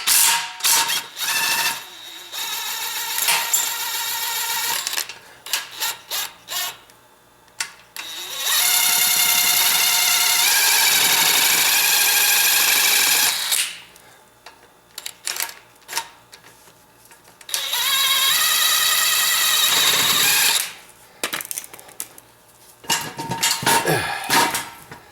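Handheld power tool motor whining in several runs as a motor mount bolt is backed out: a shorter run, then one of about five seconds, then one of about three. Short clinks and knocks come between the runs.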